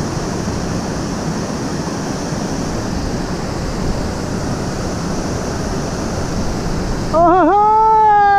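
Steady rush of a small waterfall spilling into a pool. About seven seconds in, the water sound drops away under a loud, long pitched cry that wobbles and then slides slowly down.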